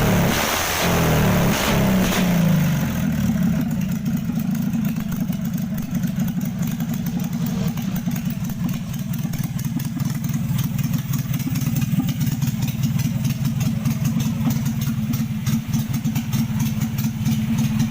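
A Kawasaki Vulcan 550cc motorcycle engine, converted from contact-breaker points to CDI ignition, running on the new ignition. The note rises and falls a couple of times in the first few seconds as the throttle is blipped, then settles into a steady idle.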